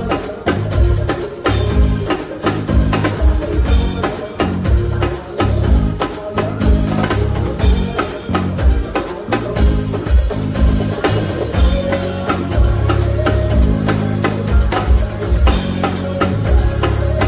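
Live band playing a song through the PA: drum kit with kick and snare keeping a steady beat over a heavy bass line.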